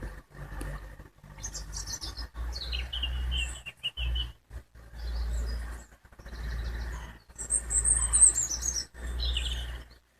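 Small birds chirping and trilling over a steady low rumble. The sound comes in short stretches that stop and start abruptly several times.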